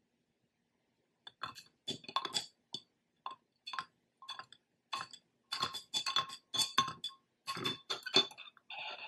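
A glass straw clinking against the inside of a can-shaped drinking glass as a latte is stirred. The quick, irregular clinks ring and begin about a second in.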